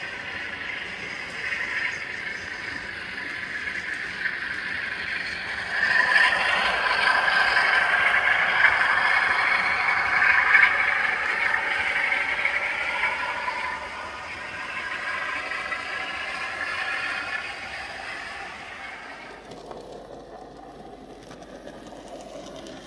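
Model railway locomotives running on the layout: a motor whine that changes pitch over rattling wheels and track. It is loudest a few seconds in, as a green diesel with a rake of wagons passes close, then dies down.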